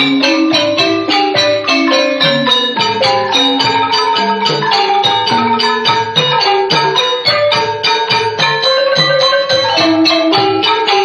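Khmer pinpeat ensemble music: wooden xylophones (roneat) and gong circles (kong vong) play a fast, even run of mallet strokes over a steady low beat.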